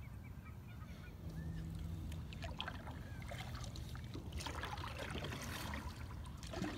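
Water splashing and trickling around a plastic kayak's hull as it moves across the lake, with a faint goose honk about a second in.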